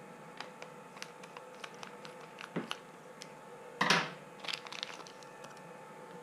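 Plastic parts packets being handled on a workbench: light crinkling and scattered small clicks, with one louder rustle about four seconds in. A faint steady hum runs underneath.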